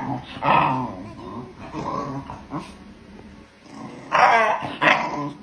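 A dog growling and whining in several short bouts, the loudest about four seconds in.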